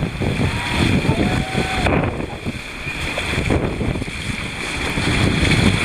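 Wind buffeting the microphone over breaking surf and washing water from wind-driven winter waves, with faint distant voices in the first two seconds; the surf hiss grows louder toward the end.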